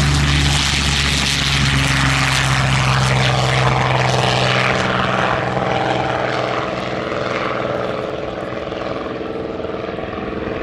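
A MiG-3 fighter's V12 piston engine running at full power on its takeoff run and climb-out, with propeller noise. It is loudest at the start and eases off about six seconds in as the aircraft climbs away.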